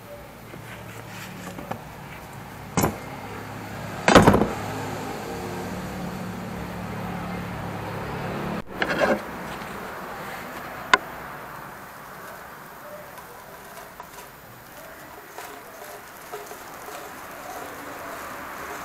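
A few knocks and clunks from handling objects, the loudest about four seconds in, with a sharp click a little past halfway, over a steady low hum.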